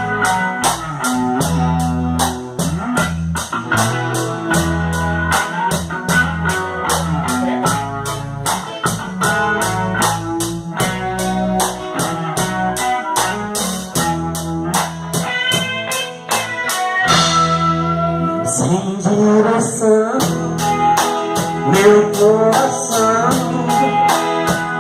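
Instrumental intro of a band song: guitar melody over a drum kit with a steady beat, with a short break and a swell into the next section about two-thirds of the way through.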